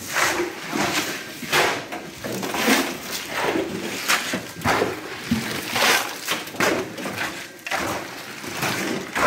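Shovels scraping and turning wet concrete mixed with gravel on a concrete floor, in repeated gritty strokes about one or two a second.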